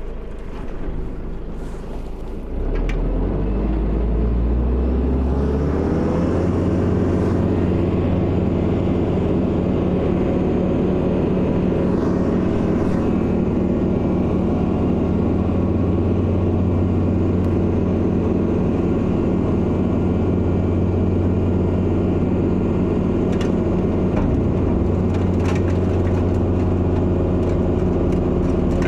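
Kubota L4701 tractor's diesel engine throttling up to drive its snowblower. The pitch rises for a few seconds after about three seconds in, then the engine runs steadily at high revs.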